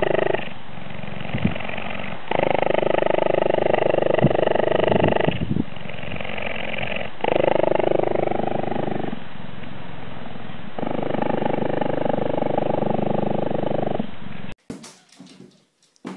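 Cheetah purring while it is stroked, a loud, steady rumble that swells and eases every couple of seconds as it breathes out and in. It cuts off suddenly near the end.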